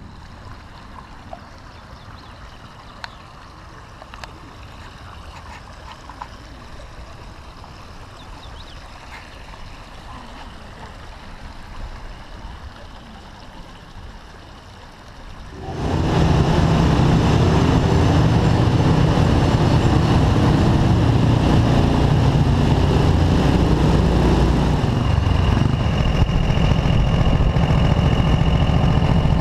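Faint outdoor background with a few light clicks, then about halfway through an abrupt cut to a motorcycle riding, recorded from the bike itself: a steady engine note with wind noise on the microphone. A thin high tone joins near the end.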